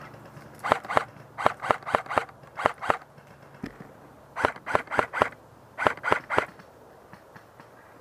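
Airsoft gun firing in five quick volleys of sharp pops, each volley three to six shots about four a second.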